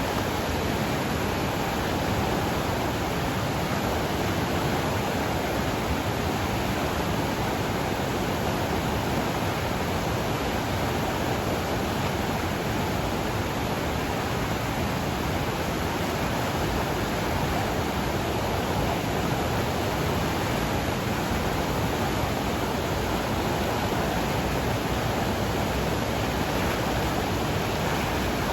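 Steady rush of a flooded mountain river swollen with runoff, water churning fast and loud with no letup.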